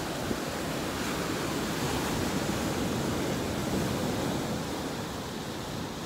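Sea surf: waves breaking and washing up a beach as a steady rushing wash that swells a little louder through the middle and then eases.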